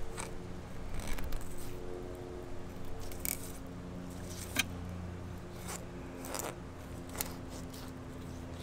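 Fillet knife cutting along a speckled sea trout over its rib cage: a few short, crisp snips as the blade goes through the small rib bones, the sharpest about halfway through.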